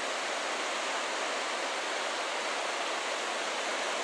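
Steady roar of fast water rushing through a narrow rock canyon below, an even noise that does not change.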